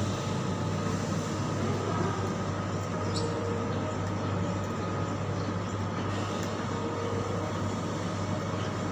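Steady low mechanical hum with a background hiss, the room tone of a café with its machines running, and a faint clink about three seconds in.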